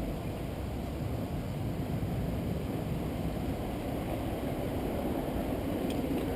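Steady, low rumbling noise with no distinct events.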